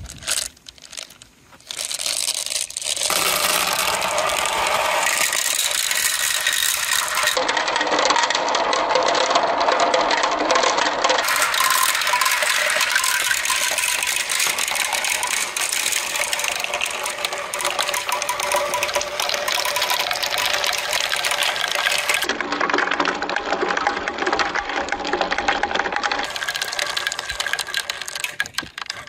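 Dozens of small balls poured from a bucket and rolling down plastic rain-gutter chutes, a dense, continuous clattering rattle that starts with a few separate clicks and builds to full about two seconds in.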